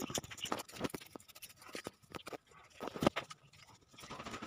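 Weeds being pulled by hand from garden soil: irregular scratching and crackling of leaves, roots and earth, with a sharper snap about three seconds in.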